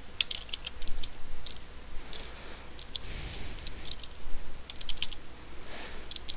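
Typing on a computer keyboard: short, irregular runs of key clicks with brief pauses between words.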